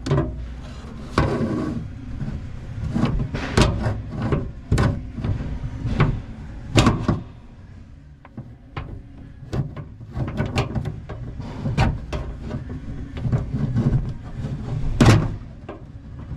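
Irregular clicks, taps and knocks of a hand tool prying at the plastic clip on the exterior door handle rod inside a stripped car door, with the loudest knocks about seven seconds in and near the end.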